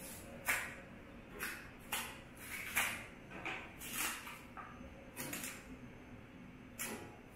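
Green plantain being peeled by hand: the thick peel is pried and torn off in a series of short, irregular scraping and tearing sounds.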